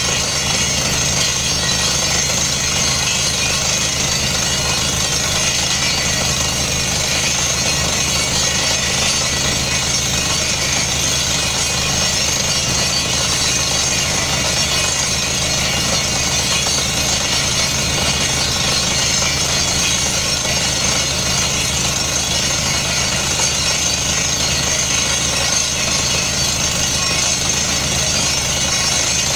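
Truck-mounted water-well drilling rig running steadily while air-drilling a borehole, its engine and drilling gear making a loud, even din with a steady high whine over it.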